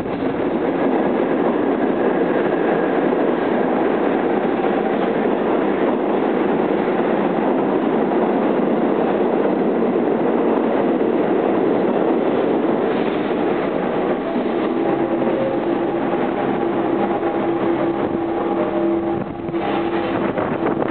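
R46 subway train pulling into the station, its wheels and running gear giving a loud, even rumble along the rails. About fourteen seconds in the rumble eases and a steady hum of several tones is left as the train slows.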